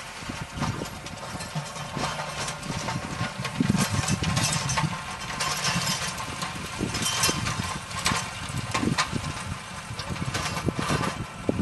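An engine running steadily, with many sharp crackles and snaps over it.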